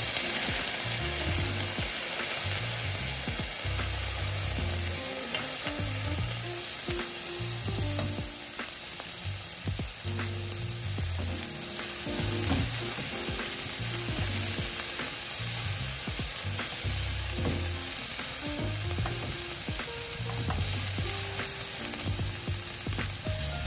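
Diced raw potatoes sizzling steadily in hot oil with popping mustard seeds, loudest right as they drop into the pan. Scattered small pops and the scrape of a silicone spatula stirring them around a ceramic-coated frying pan come through the sizzle.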